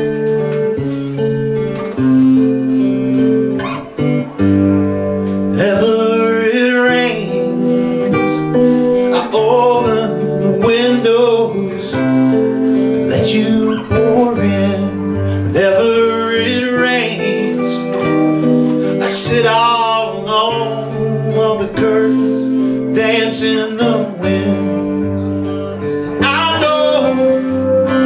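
Live band music: acoustic and electric guitars playing chords, with a man singing into a microphone from about five seconds in.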